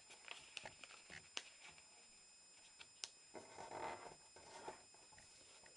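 Faint rustling and crinkling of a small sheet of paper being folded and creased by hand against a tabletop. A few light clicks are followed by a longer soft rustle about three and a half seconds in.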